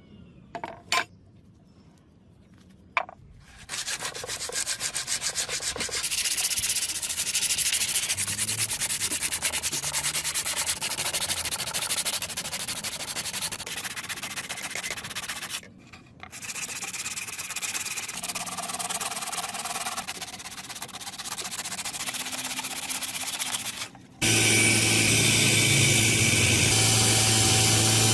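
Sandpaper rubbed by hand over a hardened steel blade forged from a thread tap, in fast back-and-forth strokes, with a short pause partway through. Two sharp clicks come just before the sanding begins. Near the end a power tool starts and runs with a steady hum.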